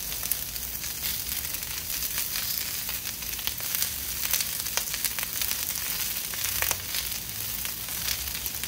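Sliced onions and pats of butter sizzling on a hot Blackstone flat-top griddle: a steady hiss with frequent small crackles and pops as the butter melts around the freshly laid onions.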